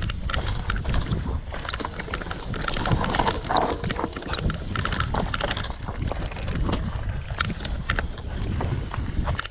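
Mountain bike running down a rough, stony natural trail, rattling in a dense, irregular string of sharp clicks and knocks. Wind rumbles on the microphone underneath.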